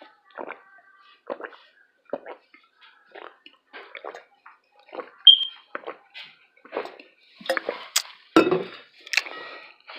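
A person chewing food close to the microphone: wet mouth sounds in short, irregular bursts, louder and busier near the end.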